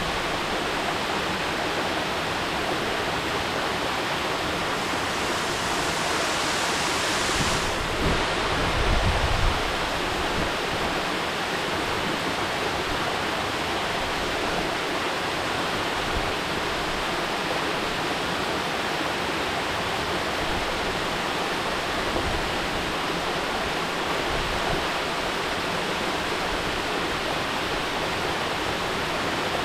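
Mountain waterfall: a steady rush of falling water, with a brief low rumble about eight seconds in.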